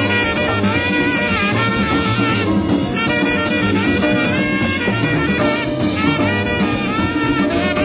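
Live Latin-jazz group playing: a tenor saxophone line with pitch bends and wavering runs over a dense backing of piano, bass, drums and hand percussion. It is heard through a lo-fi audience recording.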